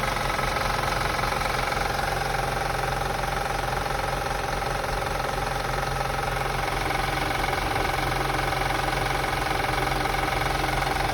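2005 Acura TL's 3.2-litre V6 idling steadily, with a fine rapid clicking from the engine bay that the owner cannot place.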